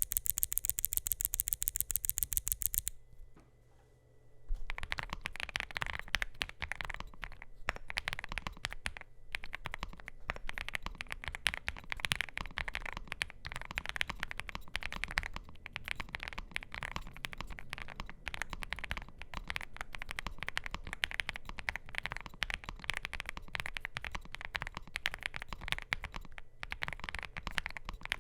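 A rapid, even run of sharp clicks lasts about three seconds. After a short pause comes steady, fast typing on a NuPhy GEM80 mechanical keyboard with lubed and filmed NuPhy Raspberry linear switches, a POM plate and PBT mSA keycaps, giving soft, muted keystroke clacks.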